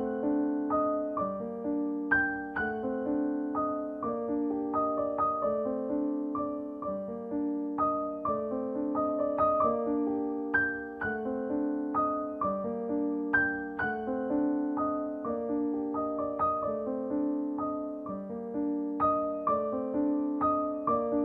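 Background piano music: a steady, repeating pattern of struck notes that ring and fade over changing chords.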